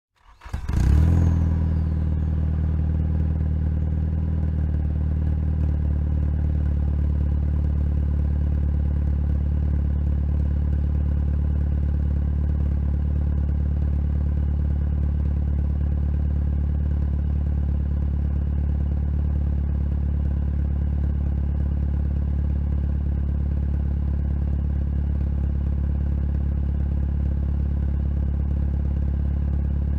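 A car engine with a bad exhaust pipe starting: it catches within the first second with a brief flare, then settles into a steady, even idle that runs through the exhaust's leak.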